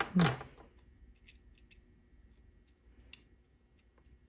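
A brief voice sound at the start, then a few faint small clicks and ticks of a small screwdriver and plastic packaging being handled and set down on a tabletop, with one sharper click at the very end.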